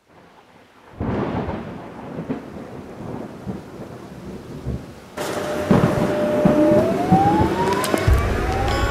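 X'Trapolis electric suburban train: a noisy rumble, then about five seconds in a louder rolling rumble heard from on board. Over it comes the whine of the traction motors, held steady at first and then rising in pitch as the train accelerates.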